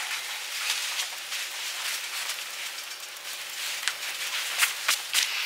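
Steady hiss with scattered clicks and crackles: surface noise of a worn film soundtrack.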